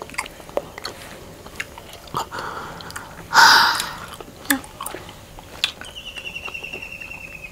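Close-up mouth sounds of honeycomb and mango popping boba being chewed: wet clicks and small pops. A loud breathy burst comes a little over three seconds in, and a faint high chirping trill near the end.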